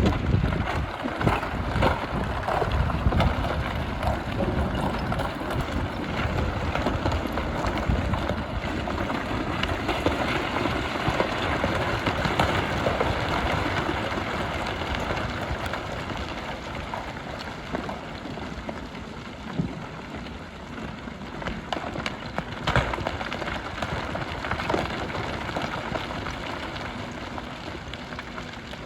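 Hyundai HX300 crawler excavator working aggregate: its diesel engine runs under a continuous crackling clatter of gravel and stones as the bucket scrapes and gathers them, with a few sharper knocks. The low rumble is strongest in the first few seconds and eases off later.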